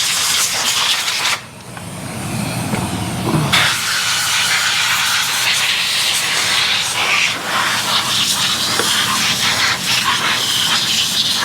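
Compressed air blowing from a nozzle onto a chainsaw part to clean out debris, a loud steady hiss that stops for about two seconds shortly after the start and then carries on. The air supply is running low.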